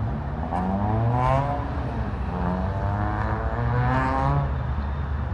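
A road vehicle's engine accelerating past, its pitch rising in about three steps as it shifts up through the gears, over a steady traffic rumble.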